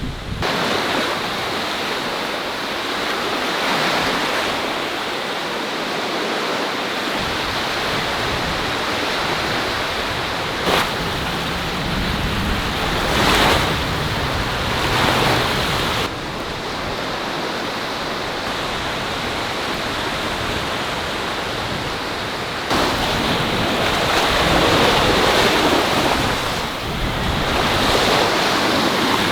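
Sea waves breaking and washing up a beach, the surf swelling and falling back every few seconds, with wind rumbling on the microphone at times.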